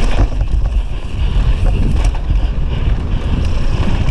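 Heavy wind buffeting on a GoPro Session microphone as a downhill mountain bike runs fast over a dry dirt track, with a constant low rumble and scattered sharp clicks and rattles.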